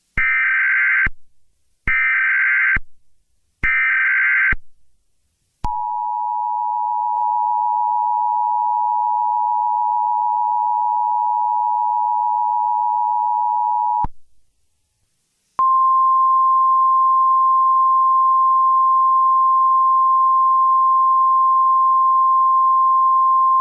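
Emergency Alert System tones: three short bursts of SAME header data, then the two-tone EAS attention signal held for about eight seconds. After a brief pause comes a single steady tone, the 1050 Hz NOAA Weather Radio warning alarm.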